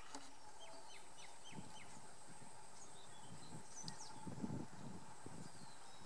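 A bird calls in a quick run of about five short falling notes in the first two seconds, over a steady high-pitched insect drone. Low rustling and crackling in dry brush comes and goes through the rest.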